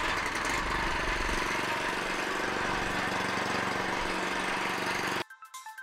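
Harbor Freight Predator 79cc single-cylinder four-stroke engine running steadily on gasoline at about mid-throttle. The engine sound cuts off suddenly about five seconds in, replaced by light music with marimba-like notes.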